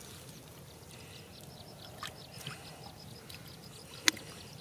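Hands splashing in shallow muddy water while catching a fish by hand, with one sharp splash about four seconds in as the dripping fish is lifted out. A rapid high chirping, about five a second, runs in the background from about a second in.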